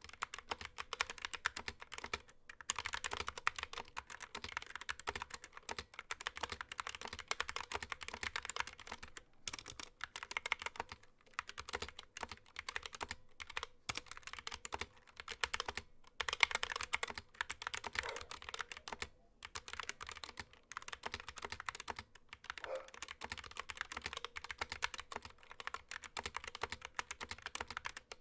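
Typing on a GK61 mechanical keyboard with Gateron Optical Yellow linear switches: fast, continuous keystroke clacking in bursts, with brief pauses between runs.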